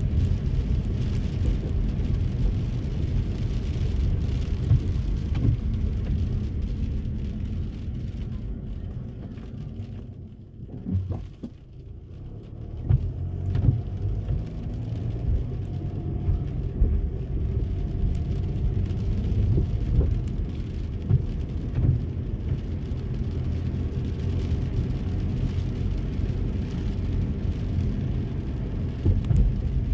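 Inside a car driving in the rain: steady low road and engine rumble with rain spattering on the car and scattered sharp taps. The rumble drops away briefly about ten seconds in, then returns.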